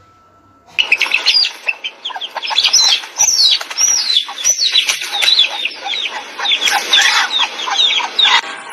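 A hen squawking loudly in a rapid, unbroken string of short arching calls, starting about a second in.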